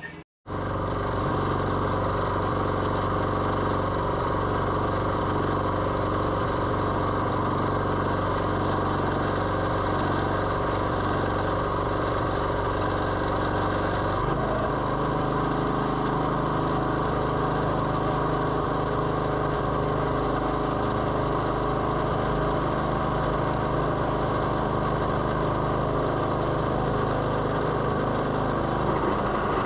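Sawmill engine running steadily under a shed-free, even load, its note shifting to a different pitch pattern about halfway through.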